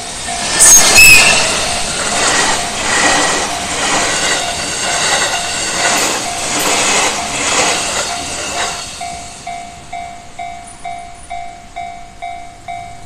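Japanese level-crossing warning bell, the standard JR electronic bell, dinging about twice a second while a train passes over the crossing with rhythmic wheel clatter, with a brief high-pitched tone about a second in. The train noise dies away after about nine seconds while the bell keeps dinging, then the bell stops at the very end.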